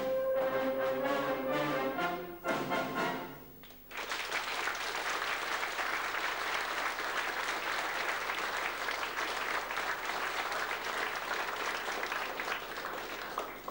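Brass band and euphonium soloist playing the closing held chord of a piece, which ends about two and a half seconds in. About a second later the audience breaks into steady applause that continues.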